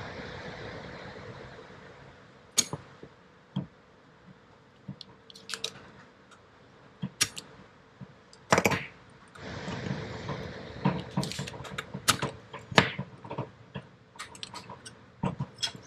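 Spring-loaded desoldering pump (solder sucker) worked at a soldered pin: scattered clicks and taps as it is handled and cocked, one loud snap about halfway through as the plunger fires, and a run of quicker clicks near the end, with two soft hissing stretches. Solder is being sucked out of the TCU circuit-board joint.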